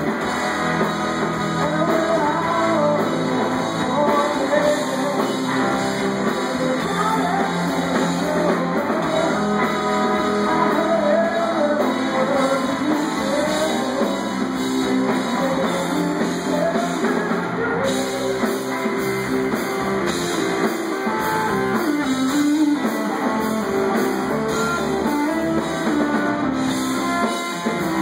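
Live rock band of electric guitar, electric bass and drum kit playing a song, heard through a club PA, with melody lines bending in pitch over a steady full band.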